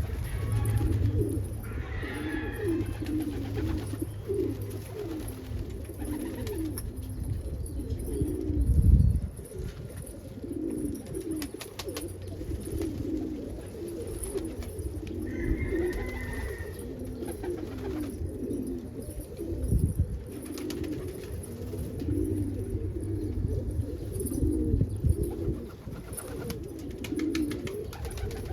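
A loft full of domestic pigeons cooing continuously, many birds overlapping, under a low rumble with a couple of louder low bumps about nine and twenty seconds in.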